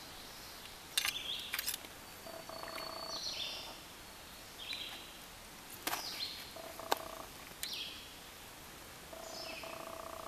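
A wild bird singing a short song phrase over and over, about every three to four seconds, each with a buzzy trilled part and quick falling high notes. A few sharp clicks come in between, and a steady stream hiss lies beneath.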